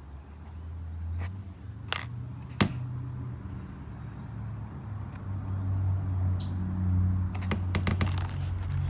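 Pieces of rough opal clicking as they are handled and set down, a few single clicks and then a quick run of them near the end, over a low hum.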